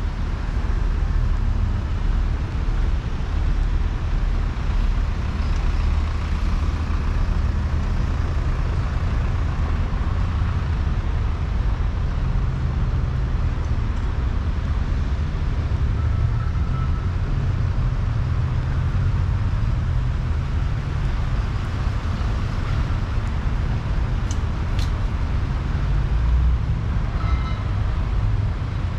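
Road traffic on a busy city street: cars and trucks passing, a steady low rumble.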